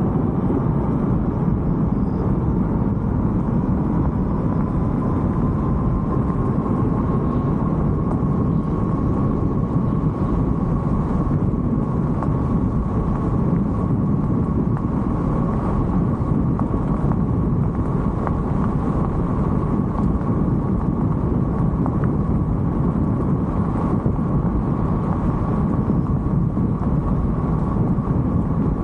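E-bike riding steadily on pavement: a constant rush of wind and road rumble, with the electric motor's thin whine running under it and edging slightly up in pitch over the first several seconds.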